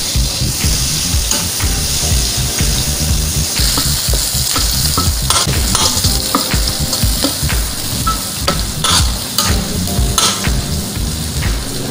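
Chopped onions sizzling in hot oil in a stainless steel wok while a metal ladle stirs and scrapes them around the pan. Sharp clinks of metal on metal come more often in the second half.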